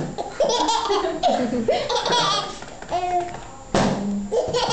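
Laughter in short bursts, a baby's laugh among it, with a sharp slap about three-quarters of the way through.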